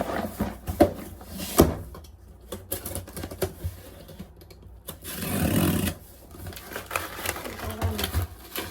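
A string of irregular clicks, taps and knocks, with a short rustling rush about five seconds in.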